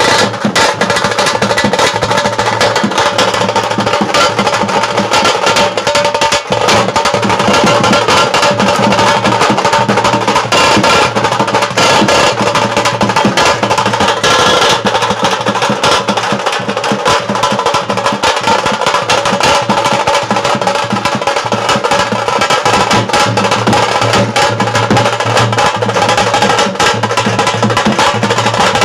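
A tasha band playing: several tasha kettle drums beaten with thin sticks in fast, continuous rolls, with a large barrel drum (dhol) played alongside.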